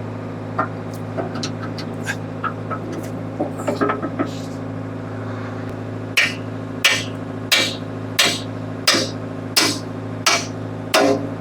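A bucket pin being hammered into a backhoe's bucket linkage, a few light taps and clinks, then strong, evenly paced metal hammer blows about one and a half a second from about halfway. Under it the Ford 555C backhoe's diesel engine runs steadily.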